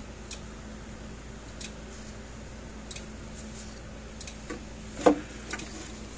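Scattered light clicks and taps from the plastic case of a Gallagher S17 solar fence energizer being handled on a workbench, with one louder knock about five seconds in, over a faint steady hum.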